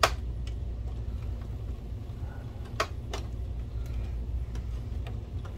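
Sharp plastic clicks and knocks as an inner cover of a projector is pulled and pried at without coming free, because it is still held in by a missed screw. One loud click comes right at the start and another a little under three seconds in, over a steady low hum.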